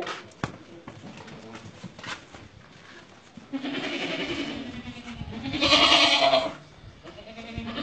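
Totapuri goats bleating: two long bleats, one starting about three and a half seconds in and a louder one around six seconds, after a few light knocks from the herd.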